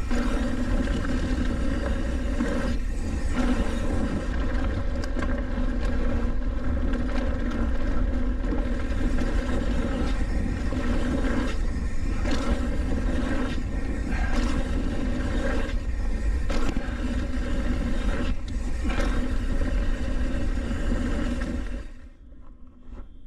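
Wind on the camera microphone and knobby tyres rolling over a dirt fire road as a Trek Roscoe 8 hardtail mountain bike descends at speed, with a steady whirring tone throughout. The noise drops sharply about a second before the end.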